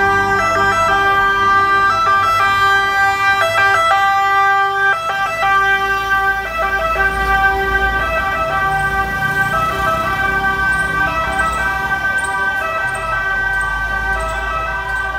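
Fire truck sirens sounding together: steady and alternating tones with a fast rising-and-falling yelp over them. From about five seconds in, the low engine rumble of the heavy fire truck joins in as it passes close.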